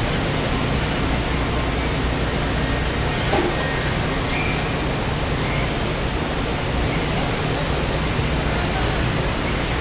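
Steady, even din of an automotive parts plant's machinery and ventilation running, with a low hum underneath.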